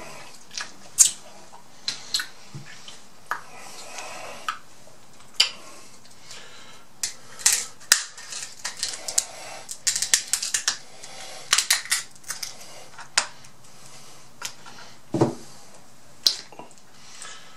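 Scissors snipping through Atlantic red crab leg shells, the shells cracking and snapping as they are cut and pulled apart. The sound is an irregular string of sharp cracks and snips, thickest around the middle.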